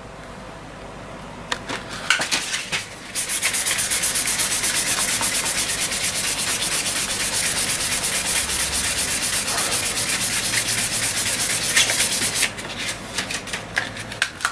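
Sandpaper rubbed by hand back and forth along a wooden snooker cue butt in fast, even strokes. The rubbing starts about three seconds in and stops about twelve seconds in, with a few handling knocks before and after. It is the smoothing pass that takes out the deep scratches in the cue's surface.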